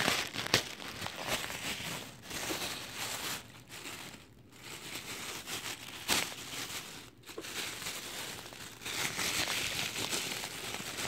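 Tissue paper being crumpled and rustled by hand, with a few sharp crackles and short lulls a little before halfway and about two-thirds of the way through.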